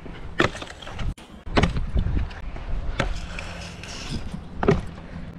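Core SL2 stunt scooter rolling on skatepark concrete, its 110 mm wheels giving a steady low rumble, with four sharp clacks of the scooter hitting the ground or coping.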